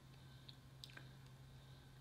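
Near silence: room tone with a faint steady low hum and a few faint ticks.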